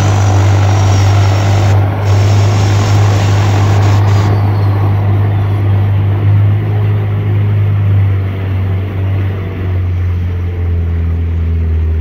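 Small Suzuki outboard motor on a 12-ft aluminium boat running steadily, a constant low drone with water and wind hiss above it that drops away about four seconds in.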